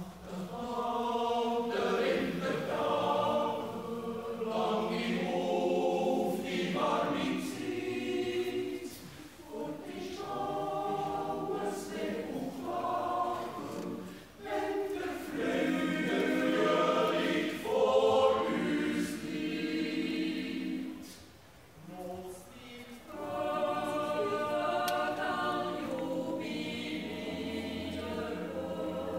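Swiss yodel choir singing a yodel song a cappella in several voices. It goes in long phrases with brief breaks, the longest about two thirds of the way in.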